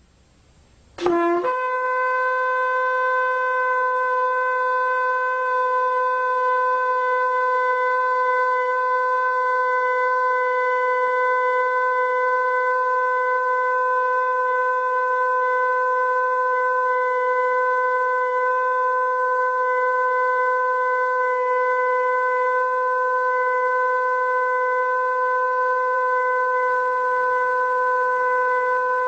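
Shofar (ram's-horn trumpet) blown in one long blast: the note slides quickly up about a second in, then holds steady and loud. Other tones join in near the end.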